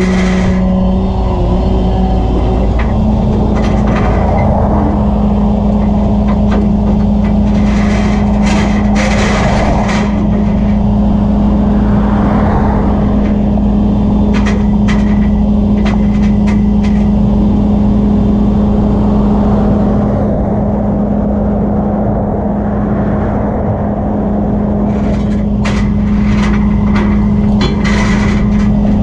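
Flatbed tow truck's engine running steadily with a constant hum that steps up slightly in pitch about two seconds in. Passing highway traffic swells over it twice, about eight seconds in and again near the end.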